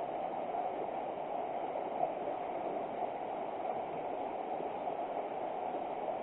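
River water flowing steadily, an even rushing noise.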